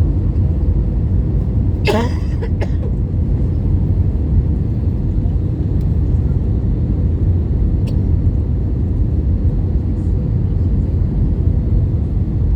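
Steady low rumble of a passenger airliner's cabin in flight, from the engines and rushing air. A brief sliding squeak-like sound cuts through about two seconds in.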